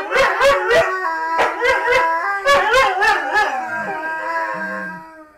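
Borzois howling together, several long, wavering howls overlapping that fade out near the end.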